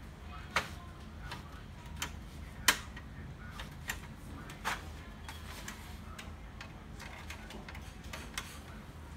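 Irregular sharp clicks and knocks of a screwdriver and the plastic and sheet-metal parts of an HP LaserJet M135a printer being handled during disassembly, the loudest about two and a half seconds in, over a low steady hum.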